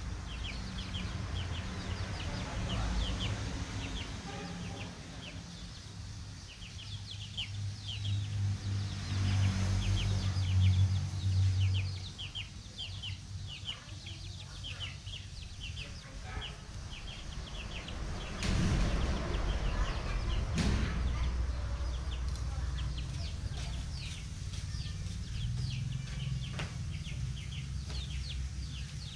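Young chickens peeping and clucking as they forage, with many short high peeps throughout. A low rumble runs underneath, loudest about ten seconds in, and a couple of brief rustles come about two-thirds of the way through.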